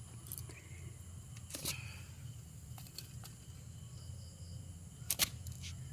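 A few short, sharp clicks or taps: one about a second and a half in and a louder one about five seconds in. They sit over a steady low hum.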